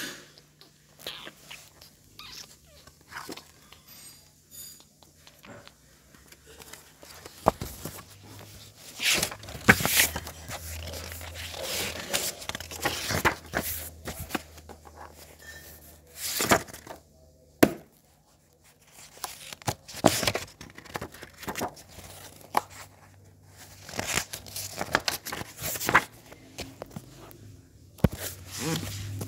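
Irregular rustling, crinkling and scraping of sketch-pad paper mixed with handling noise from the phone being moved about, with several louder sharp rustles from about a third of the way in.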